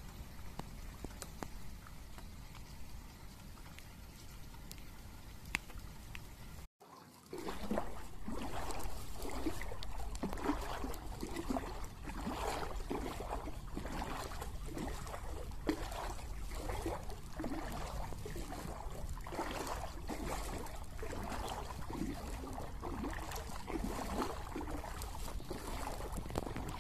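Floodwater sloshing and splashing in quick, irregular strokes, starting after a sudden short break about seven seconds in; before the break, only a quieter steady noise.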